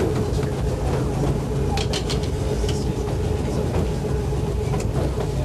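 Electric trolley car running along the track: a steady rumble with a constant whine, and a few sharp clicks about two seconds in and again near the end.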